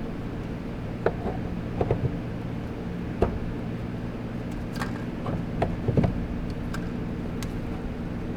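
Steady mechanical hum with about ten scattered clicks and knocks, from tools and metal parts being handled.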